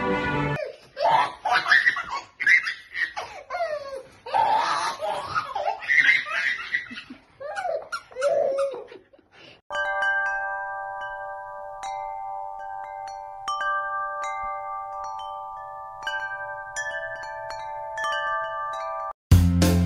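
Voices laughing for about ten seconds. After a sudden cut, chimes ring in a slow sequence of struck notes, several held together and left ringing.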